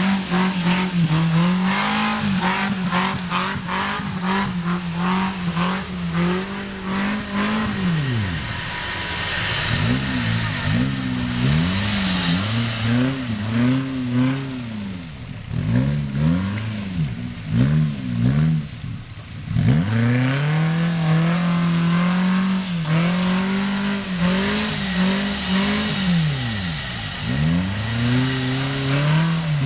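Suzuki Jimny's engine revving up and down over and over, its pitch climbing and then dropping away repeatedly as the throttle is worked.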